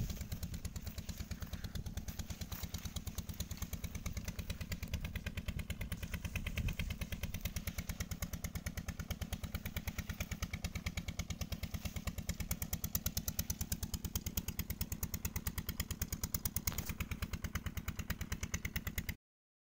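Peter-type single-cylinder diesel engine of a tube well running steadily, its exhaust beating evenly at about seven beats a second. The sound cuts off suddenly near the end.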